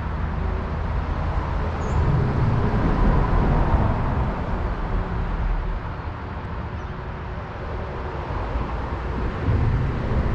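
Steady low rumble of road traffic, with a faint engine hum, swelling louder about two seconds in and again near the end.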